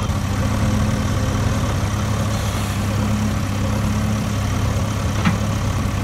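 A heavy engine idling steadily with a low, even rumble, an engine sound effect laid over the toy excavator digging. A single short click about five seconds in.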